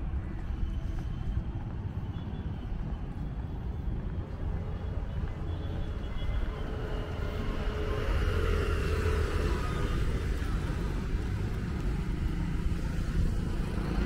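Steady outdoor rumble of road traffic, growing a little louder from about seven seconds in.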